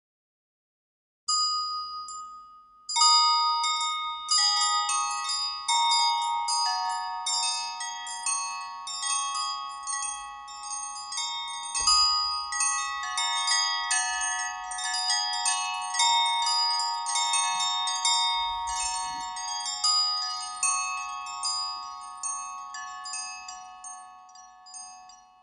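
A stock ringtone of the HTC DROID Incredible 4G LTE: a short held note about a second in, then from about three seconds a quick melody of ringing struck notes that slowly fades away near the end.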